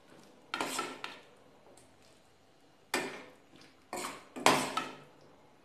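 Metal spoon scraping and knocking against a stainless-steel kadhai while scooping out fried onion and tomato, in several short strokes with pauses between.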